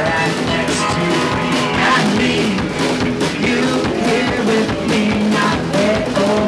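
Live string band playing an upbeat song: strummed mandolin and acoustic guitar with a sung lead vocal.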